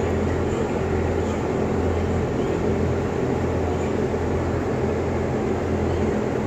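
Steady, loud mechanical drone of large ventilation blower fans running, with a low electrical hum.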